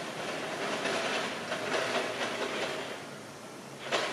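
Shipyard work noise: a steady mechanical rush with irregular metallic clatter running through it, and a sharp clank near the end.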